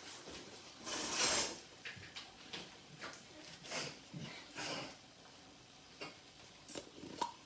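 Kitchen handling sounds: a longer scrape or rustle about a second in, then scattered light clicks and knocks of utensils and containers.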